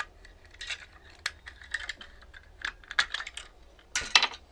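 Small plastic case of an RC tank's radio unit being pried open by hand: a run of light plastic clicks and ticks, with a louder clatter near the end as the halves come apart.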